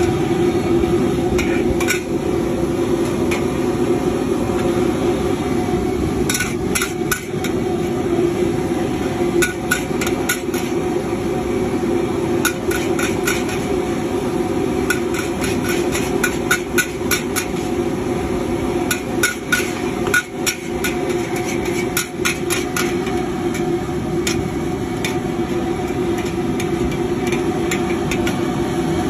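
Metal wok spatula and ladle clanking and scraping against a large wok while noodles and prawns are stirred in bubbling broth. The knocks come in quick runs over a steady background rumble.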